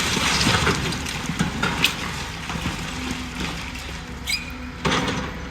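Demolition excavator's diesel engine running steadily while the building is pulled apart, with scattered cracks and knocks of breaking material and a louder crunch near the end.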